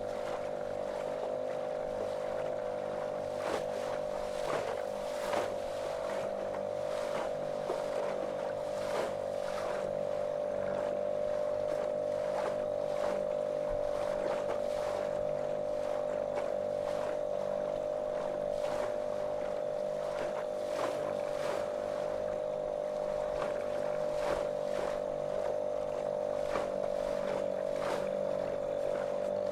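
Small motorboat's motor running at a steady, monotonous drone, with short irregular slaps of water against the hull.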